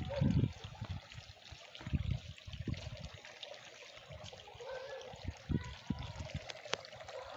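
Water trickling from a tiered garden fountain into its stone basin, a steady hiss broken by irregular low thumps.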